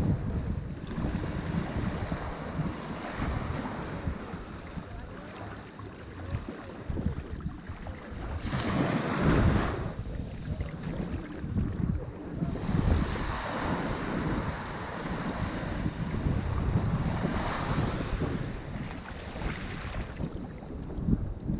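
Ocean waves breaking on a shore, the surf swelling and falling back; one wave breaks loudest about nine seconds in, with further breaks around twelve and seventeen seconds. A low rumble of wind on the microphone runs underneath.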